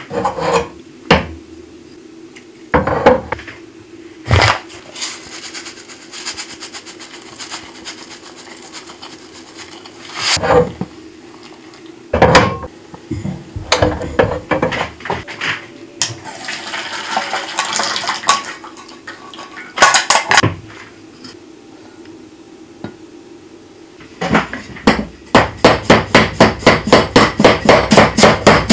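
Scattered metal clanks of an aluminium saucepan being handled on a gas stove's grate, over a steady low hum. Near the end, a kitchen knife slicing a carrot on a wooden cutting board in a quick, even rhythm of about four strokes a second.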